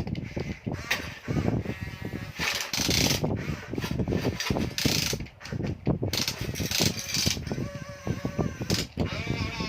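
A radio-controlled Huina construction model working, its gear motors and moving parts giving off irregular clicks, ratcheting and rattles, with a few short noisy bursts.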